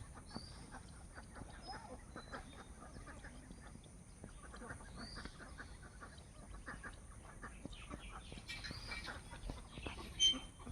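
Faint bird calls, fowl-like, over scattered light clicks and rustling, with one louder knock near the end.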